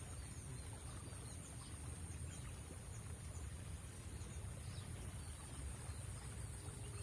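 Riverside ambience: a steady high-pitched insect drone with scattered faint bird chirps over a low rumble.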